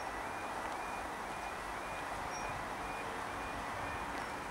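Level crossing warning alarm sounding a two-tone warble, alternating between two high notes about twice a second, over a steady background rush of noise. The alarm signals that a train is approaching and the barriers are about to come down.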